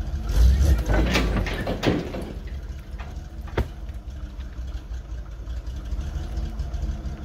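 Dump truck engine running steadily while firewood logs tumble and clatter out of the raised dump bed, loudest in the first two seconds, with one sharp knock of wood about three and a half seconds in.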